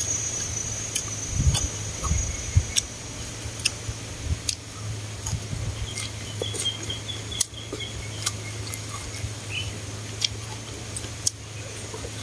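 Close-miked chewing of a mouthful of fresh herbs and noodles: soft crunches and scattered wet mouth clicks, over a steady high insect trill.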